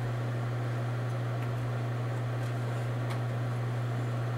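A steady low hum over an even background hiss, with a couple of faint clicks.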